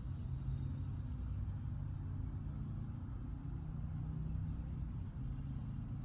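Steady low rumble without any clear pitch or rhythm.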